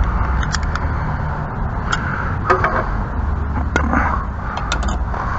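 Scattered sharp metallic clicks and knocks of hand tools working a pipe fitting, over a steady low rumble.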